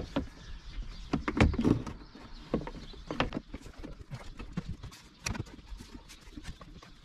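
Irregular plastic clicks and knocks as a Remis cab blind's side rail is pushed and worked into its clips along the van's windscreen pillar, with a cluster of louder knocks about one to two seconds in.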